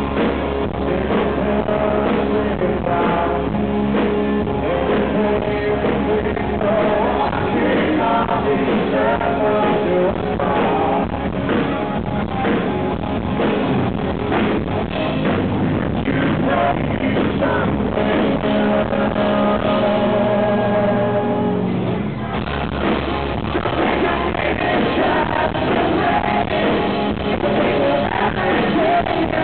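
A rock band playing live, with a male lead singer over electric guitars, bass and drums. The low end drops out for about a second two-thirds of the way through, then the full band comes back in.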